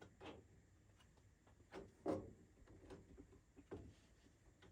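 Faint, scattered handling clicks and knocks, four or five of them, the loudest about two seconds in, as small parts of a furnace pressure switch are worked on by hand.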